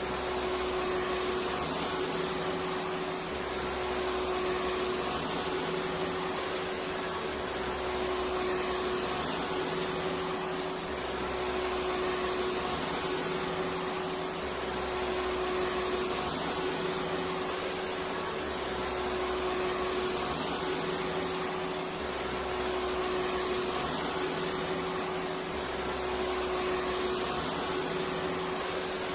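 Electric vacuum cleaner running continuously, a steady whooshing noise with an even hum. A low rumble underneath comes and goes every couple of seconds.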